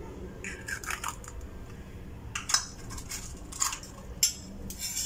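Eggshell cracked and pulled apart by hand over a glass blender jar, with the shell handled after: a series of short, sharp crackling clicks spread over a few seconds.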